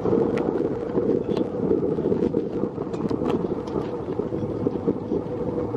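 Sightseeing boat underway: a steady rumble of engine and water noise, with wind buffeting the microphone.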